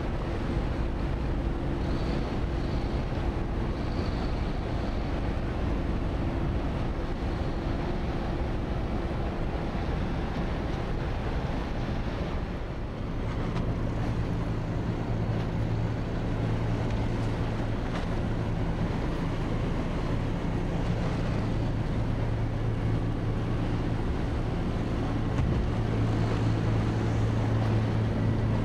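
Fishing boats' diesel engines droning steadily as they motor into harbour, with wind rumbling on the microphone. About halfway through, a deeper, stronger engine hum takes over.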